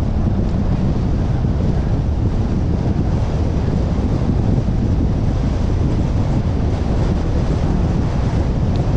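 Steady low rumble of a car driving along a road: tyre and road noise mixed with wind buffeting the microphone.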